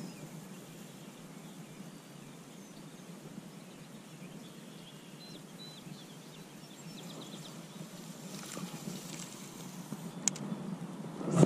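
Steady outdoor wind noise on the microphone at the pond's edge, with faint bird chirps a few seconds in. Near the end comes a single sharp click, then a short loud burst.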